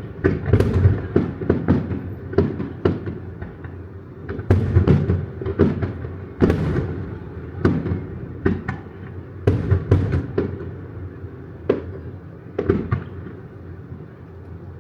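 Aerial fireworks in a grand finale: rapid, irregular volleys of shell bursts, sharp cracks and booms a fraction of a second apart over a continuous low rumble, with echoing tails after the loudest bursts.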